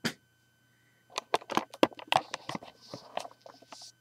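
Small objects being handled: a sharp click at the start, then after a short pause a run of irregular light clicks and taps, with a brief rustle near the end.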